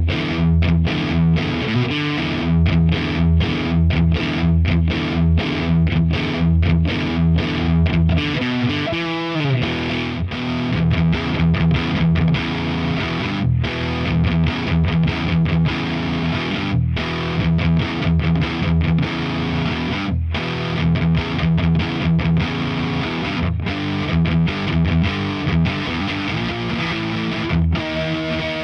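Distorted electric guitar riffing: a G&L SC-3 Deluxe with its stock MFD single-coil pickups through a high-gain Diezel VH4 head and a Marshall 4x12 cab with Celestion G12K-100 speakers. A choppy, stop-start chugging riff gives way about nine seconds in to a slide down the neck, then more riffing with short stops.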